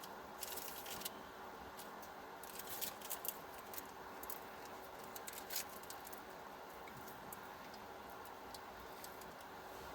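Rustling and crinkling of packaging as an instant coffee packet is handled, in a few short bursts, over a faint steady hum.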